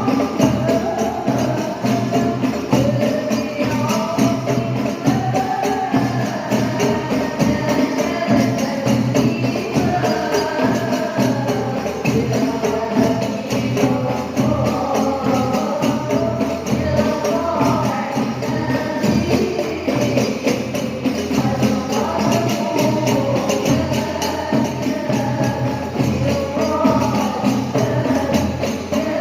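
Hadroh: a group of women singing an Islamic devotional song (sholawat) together, over frame drums with jingles beating a steady, dense rhythm.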